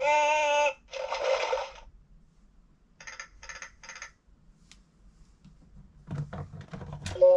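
Electronic sound effects played through the small speaker of a LeapFrog 100 Animals talking book: a short pitched chime, a noisy burst, then four short rapid bursts. Irregular clicks and thumps near the end come from the book being pressed.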